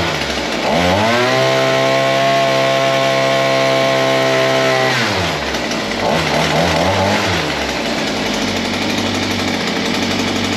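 VEVOR 43cc two-stroke mini tiller engine running just after its very first start. It dips in speed and revs back up within a second, then holds high and steady for a few seconds. About five seconds in it falls to a lower, uneven speed and settles there.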